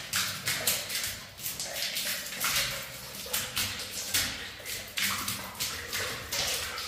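Water splashing on a wet concrete floor and tiled wall as the floor is washed with a squeegee, in a quick, irregular run of short splashes and swishes.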